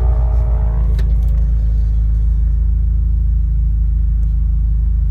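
Steady low rumble from a 2013 Hyundai Genesis Coupe with the 8-speed automatic, the noise the owner is asking for help with.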